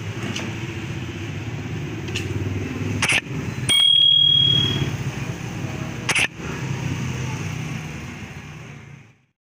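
Subscribe-button animation sound effects: a sharp click about three seconds in, followed at once by a bright bell ding that rings for about a second, and a second click about six seconds in. Under them runs a steady low rumble that fades away near the end.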